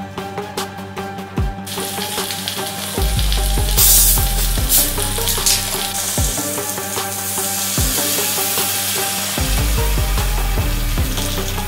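7up soda poured from a plastic bottle into a wok over a whole chicken, a steady hiss of liquid that starts about two seconds in and is loudest a couple of seconds later. Electronic background music plays throughout.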